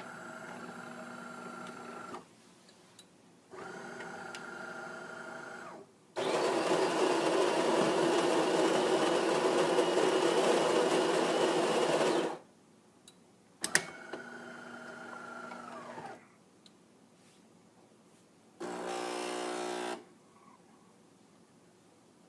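DeLonghi ESAM3300 Magnifica super-automatic espresso machine starting a two-cup brew. A motor hums in two short runs, then the built-in grinder grinds beans loudly for about six seconds. After a click the motor runs again and winds down, and near the end a pump buzzes for about a second.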